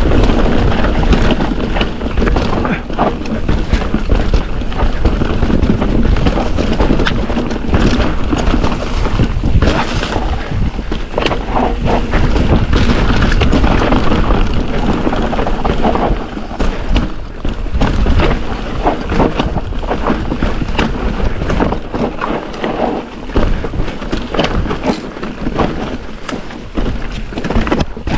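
Mountain bike (a 2023 Ibis Ripmo V2S) running down a dirt downhill trail. Wind buffets the microphone over the tyre noise, and the bike rattles over the bumps with frequent clicks and knocks. The wind eases a little past halfway.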